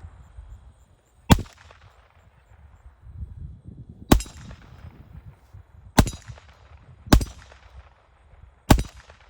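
Handgun fired five times at uneven intervals, each shot a sharp report with a short echoing tail.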